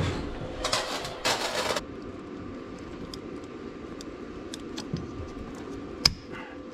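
A welder crackles briefly as a bead is laid onto a broken head bolt stub in the cylinder head, then pliers clink and scrape on the welded stub as it is worked to extract the bolt, with one sharp metallic click about six seconds in.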